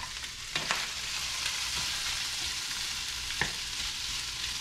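Fish meat and onions sizzling in a skillet on a glass-top stove while being stirred with a spatula, with a few short clicks of the spatula against the pan.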